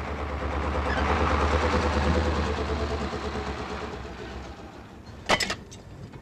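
An engine's noise swells and then fades away over a few seconds, with a steady low hum under it, followed by a single sharp knock near the end.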